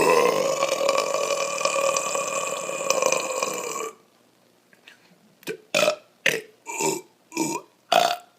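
A man's long, loud burp held steady for about four seconds, followed after a short pause by a quick run of about six short burps.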